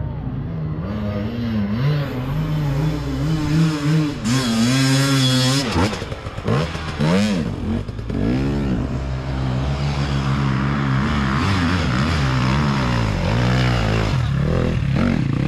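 Enduro dirt bike engines revving hard and falling away again and again as the bikes climb a steep dirt slope. The pitch rises and drops in quick sweeps, with several sharp blips in the middle.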